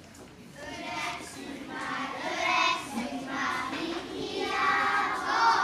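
A group of young children singing a song together, starting about half a second in.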